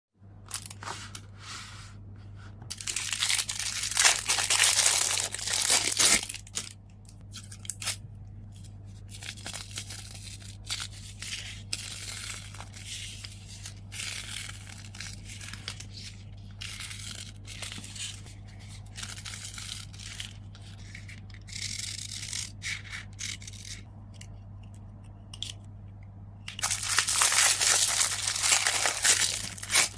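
Packaging being handled while an order is packed: paper and plastic crinkling and rustling with small taps, and two longer, louder tearing stretches, about three seconds in and again near the end.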